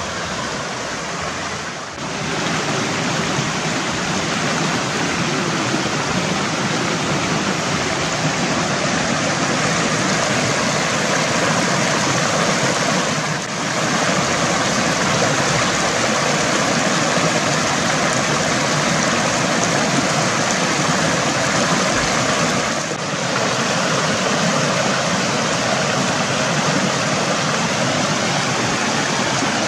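Shallow mountain stream rushing and splashing over rocks and small cascades, a steady, dense water noise that dips briefly three times.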